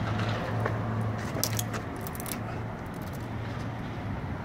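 A few light metallic clicks and rattles from a bicycle being twisted and handled against a bent U-lock, over a steady low hum of street traffic.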